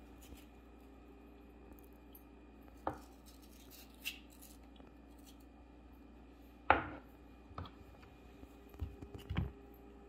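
Kitchen knife knocking on a wooden cutting board as tomato wedges are trimmed: a few separate knocks, the loudest about two-thirds of the way through, then a quick cluster of taps near the end, over a faint steady hum.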